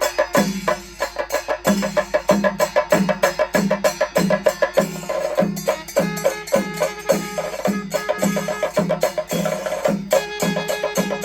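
Kerala temple festival percussion music: a steady low drum beat about three strokes every two seconds under fast, dense strokes, with a sustained melody line above.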